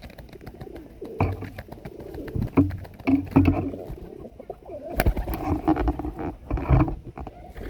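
Birds gathered at a feeding spot, giving repeated low calls with scattered sharp clicks and several dull thumps.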